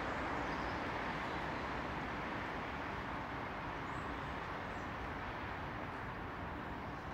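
Steady urban background noise from distant road traffic: an even hum with no distinct events.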